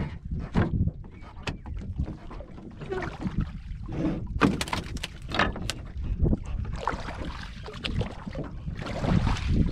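Scattered knocks and clicks of a fishing net and gear being handled on the plank deck of a wooden boat, over a steady low rumble of wind on the microphone. The rushing grows stronger about seven seconds in.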